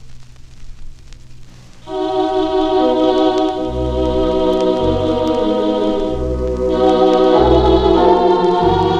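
Vinyl record surface crackle and hiss in the gap between tracks, then about two seconds in an organ comes in with sustained chords over a pulsing bass line, opening the next song.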